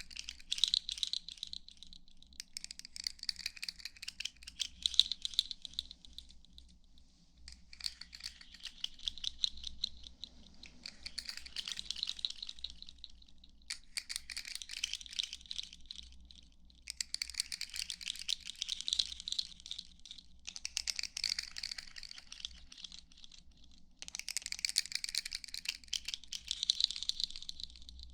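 Close-miked ASMR trigger sounds: bursts of rapid fine clicking and crackling, each a few seconds long with short pauses between.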